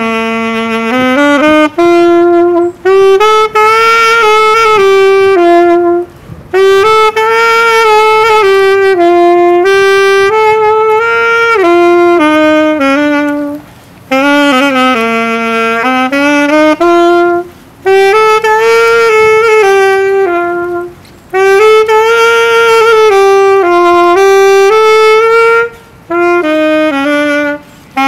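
Solo alto saxophone playing a Christmas tune unaccompanied: melodic phrases of a few seconds that climb and fall, separated by short breaths.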